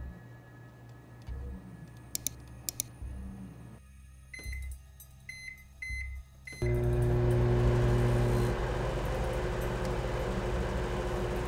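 Microwave oven keypad beeping a few times as its buttons are pressed, then the oven starting up about seven seconds in and running with a steady, loud hum.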